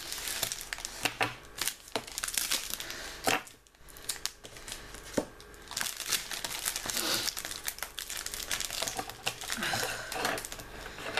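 Paper wrapping on a gift package being crumpled and torn open by hand: a dense, irregular run of rustles and crackles, with a short lull about three and a half seconds in.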